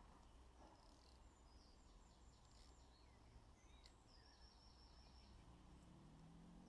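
Near silence with faint birdsong: a small bird repeating short, high, stuttering chirp phrases several times.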